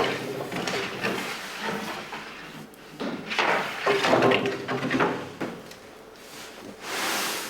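Scraping and sliding noises in three bouts: one at the start, a longer one from about three to five and a half seconds in, and a shorter one near the end.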